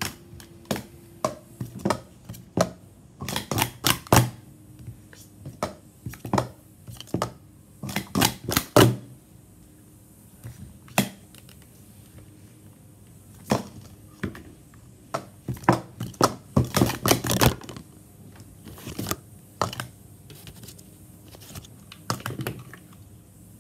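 Speed Stacks plastic cups being stacked and unstacked by hand on a stacking mat: quick runs of light plastic clacks and taps, with short pauses between the runs.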